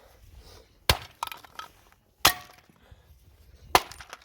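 Hammer blows smashing the remaining parts of a Poulan Pro chainsaw: three hard strikes about a second and a half apart, each followed by a brief clatter of broken pieces.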